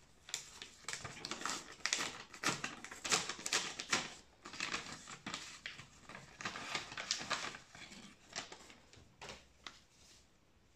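Paper rustling and crinkling as a folded paper envelope is opened and unfolded by hand, in quick irregular crackles that die away over the last couple of seconds.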